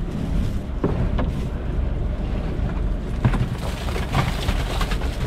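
Fishing boat's engine running steadily, with a few short knocks as fish are tipped from a tub into the hold.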